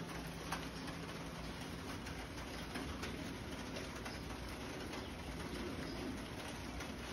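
Steady rain falling outside, with a pigeon cooing low at intervals.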